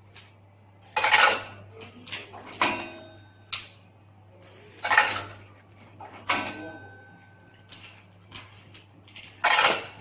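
Small semi-automatic packing machine for gum and sweets cycling as pieces are fed in by hand: loud clattering, crinkling bursts as it draws and seals a cellophane bag, about every four seconds, with lighter clicks between, over a steady low hum.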